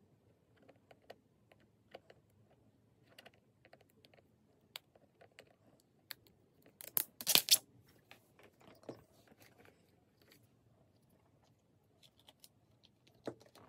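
Plastic protective film peeled off a Garmin DriveSmart 86 sat-nav's screen: a short loud crackling rip about seven seconds in. Scattered small clicks and taps of handling the device come before and after it.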